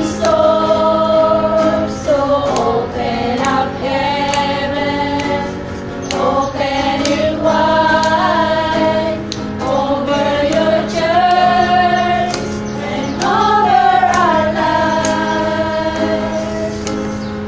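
A small group of women singing a worship song together, with long held notes, accompanied by a strummed acoustic guitar.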